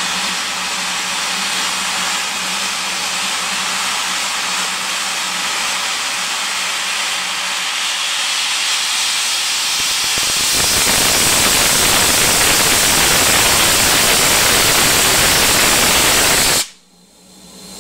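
BR Standard Class 4 2-6-0 steam locomotive hissing steam while standing. About ten seconds in, the hiss gets louder and fuller, then cuts off abruptly near the end.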